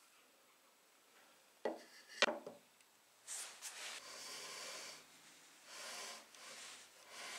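Two sharp wooden knocks, then wood rubbing and sliding against wood in several short stretches as wooden lathe parts are fitted together by hand.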